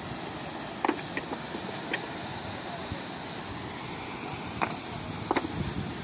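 Steady rush of river water pouring through concrete culverts, with a few sharp clacks of rocks knocked together as they are packed around the pipes.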